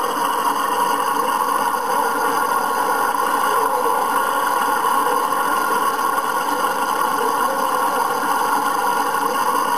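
Ford Trimotor's three radial engines running steadily as the airliner readies for takeoff, heard through the hiss of an old film soundtrack.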